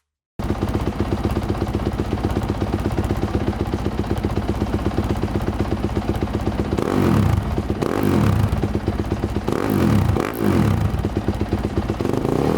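Dirt bike engine running through a newly fitted Rocket Exhaust aftermarket muffler: a steady idle, then from about seven seconds in a series of quick throttle blips, each rev rising and falling.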